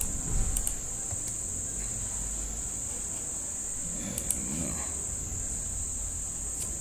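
A steady, unbroken high-pitched whine, with a few faint short clicks.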